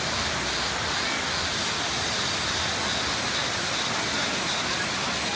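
Waterfall rushing: a steady, even noise that holds at one level.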